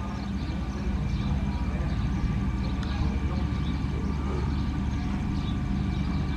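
Heavy diesel engine of a motor grader running steadily with a deep, even drone.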